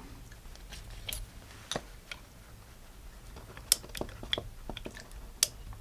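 Light metallic clicks and taps from a Heritage Barkeep .22 single-action revolver as its cylinder is being taken out: a handful of separate, sharp ticks spread over a few seconds.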